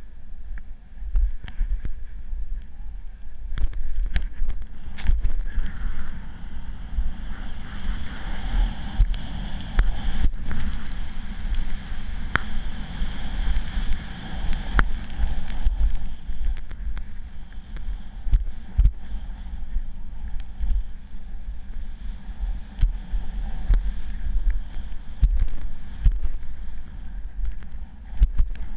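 Wind buffeting a helmet-mounted action camera during a downhill run on snow, a heavy low rumble over the hiss of sliding on snow, with scattered sharp clicks and knocks.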